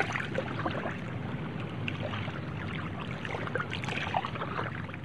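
Water sloshing and bubbling steadily, with many small pops through it.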